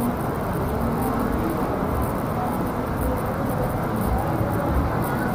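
Steady urban background noise: an even low rumble with no distinct events.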